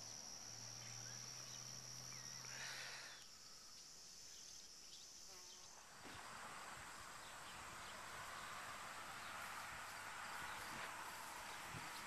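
Faint outdoor ambience with a steady high-pitched insect drone and a low hum. The hum fades about three seconds in and the drone stops about halfway through, leaving a soft even hiss.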